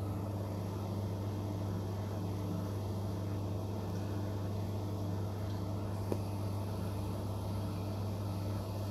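Steady low mechanical hum with a faint click about six seconds in.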